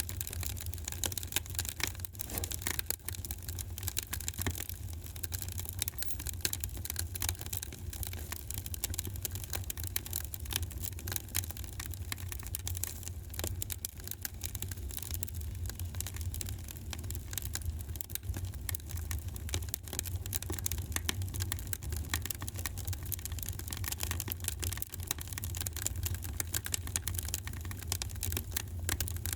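Wood fire in a fireplace crackling, with dense rapid pops and snaps over a steady low rumble.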